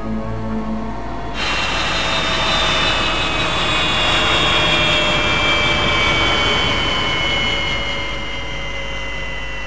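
Helicopter turbine engines running with a loud rushing noise and a high whine that falls slowly in pitch: the engines spooling down after landing. It cuts in suddenly about a second and a half in, replacing music.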